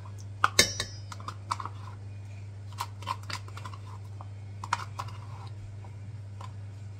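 A spoon scraping and tapping yogurt out of a plastic cup into a stainless steel mixing bowl: scattered light clicks and taps, the loudest about half a second in. A steady low hum runs underneath.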